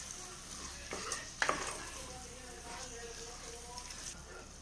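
Wooden spoon stirring a thick masala of onion, tomato and curd in a pressure cooker, with a steady sizzle of frying. A couple of sharp knocks of the spoon against the pot come about a second in.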